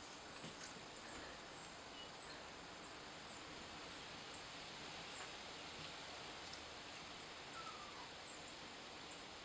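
Faint outdoor ambience: a steady hiss and a faint high steady tone, with short, high, falling chirps repeating about once a second.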